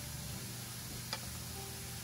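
A single light tap on a wooden cutting board about a second in, as carrot slices are handled with a chef's knife, over a faint steady low hum and hiss.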